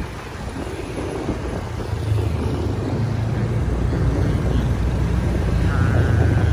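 Motorcycle engine running with road and traffic noise, heard from on the moving motorcycle. It grows louder about two seconds in.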